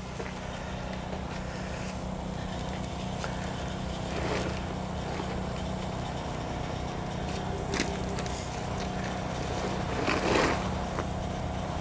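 Steady low hum of an idling truck engine, with a few brief rustles and scrapes as a rolled flatbed tarp and its rubber bungee cords are handled, the loudest about ten seconds in.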